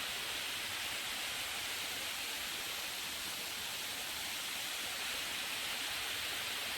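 Waterfall rushing steadily, an even hiss of falling water with no change in level.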